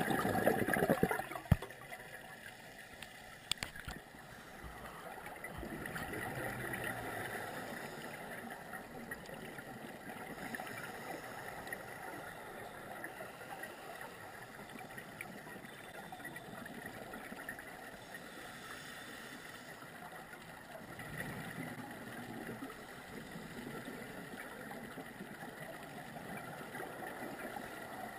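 Scuba regulator exhaust heard underwater: a loud gurgling burst of exhaled bubbles in the first second, then a low bubbling hiss that swells and fades with later breaths.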